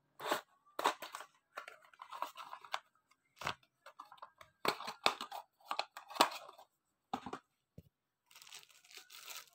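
Plastic bag and tissue paper crinkling and rustling in short, irregular bursts as a small boxed parcel is unwrapped by hand, with fainter rustling near the end.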